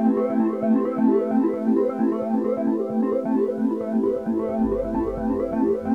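Background music: an electronic keyboard or synthesizer tune of quick, repeating notes, with a low bass coming in about four seconds in.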